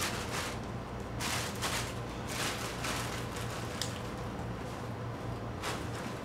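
Cloth and a bag being handled, rustling in several short bursts, over a steady low hum.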